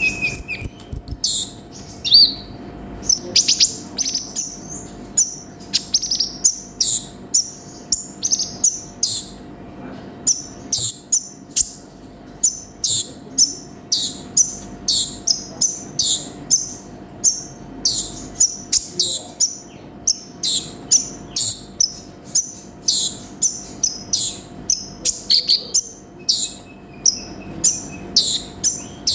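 Olive-backed sunbird (kolibri ninja) in full song: a fast, unbroken string of sharp, high-pitched chirps and short trills, two or three a second.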